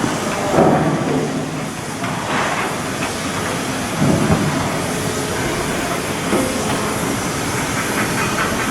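Shipyard work noise: a steady hiss of machinery with intermittent metallic clatter, louder about half a second in, two and a half seconds in and four seconds in.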